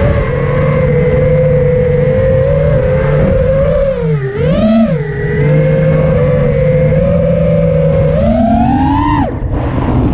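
Stingy V2 FPV quadcopter's brushless motors and propellers whining, the pitch following the throttle. It dips and rises about four seconds in, climbs near the end, then drops away sharply for a moment before coming back.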